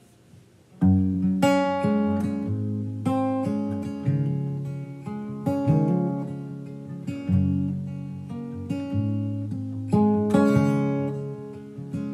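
Acoustic guitar starting about a second in, chords struck one after another and left to ring, as the instrumental opening of a song.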